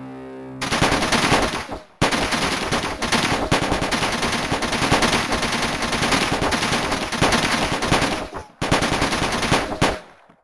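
Rapid machine-gun-like fire, a dense rattle of shots in three long runs, with short breaks about 2 seconds and 8.5 seconds in, stopping about 10 seconds in.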